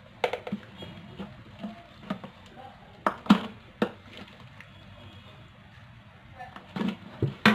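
Scattered light knocks and taps of a spoon against a plastic jar and bowl as chopped pickling vegetables are spooned into the jar. The loudest taps come about three seconds in and again near the end.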